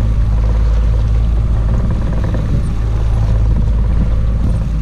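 Boat's outboard motor running steadily under way, a constant low rumble with the rush of water and air over it.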